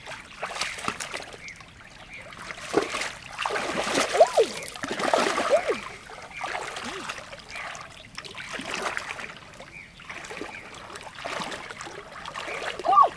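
Water splashing and trickling, with irregular plops and gurgles, busiest a few seconds in.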